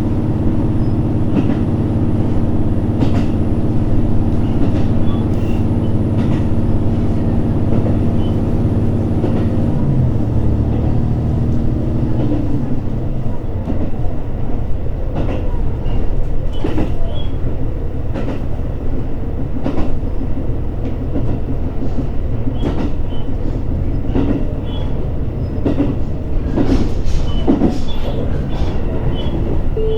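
Interior running sound of a JR Hokkaido H100 diesel-electric railcar on the move. A steady engine and traction hum ends about ten to twelve seconds in. After that, wheel-on-rail rumble and scattered clicks from rail joints continue.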